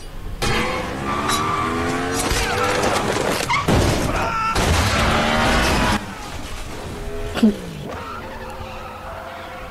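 Film soundtrack of a motorcycle chase: motorcycle engines revving up and down at speed, with tires screeching. It starts loudly about half a second in and drops off suddenly about six seconds in, followed by a single sharp screech with a falling pitch.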